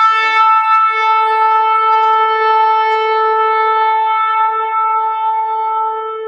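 A single long shofar blast. It steps up from a lower tone to a higher note within the first half second, holds that note steadily, and begins to fade near the end.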